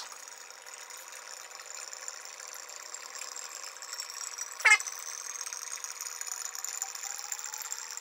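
Vodka pouring through a plastic pour spout into an empty glass wine bottle: a steady trickling hiss whose tone rises slowly as the bottle fills. One short, louder glug comes about halfway through.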